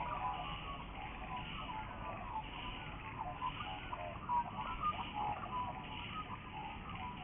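Faint outdoor ambience with many short, scattered chirps of distant birds over a low hiss.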